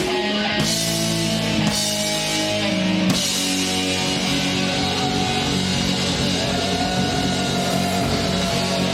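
Live rock band playing an instrumental passage: distorted electric guitar chords over drums, with no singing. The chords change every second or so at first, then a chord is held.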